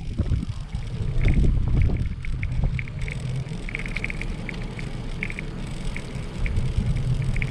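Wind buffeting the microphone of a camera on a moving bicycle, over tyres rolling on a pebbly paved path. Short high chirps come and go.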